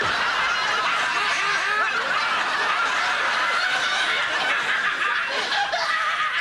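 Audience laughing: many voices together, holding at a steady level.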